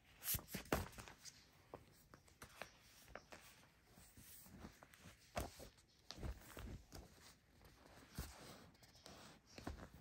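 Glossy magazines being handled and paged through: paper rustling and sliding, with scattered soft taps, the sharpest just after the start.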